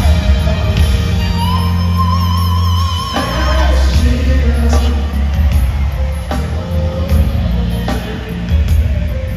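Live new jack swing band playing loud through an arena PA, heard from the crowd. A singer holds a long wavering note over heavy bass, and drum hits come in about three seconds in.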